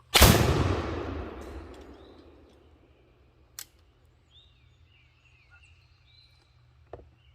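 A single shot from a Pedersoli 12-gauge side-by-side percussion muzzleloading shotgun, its report dying away over about two seconds. A faint click follows a few seconds later, along with faint high wavering calls.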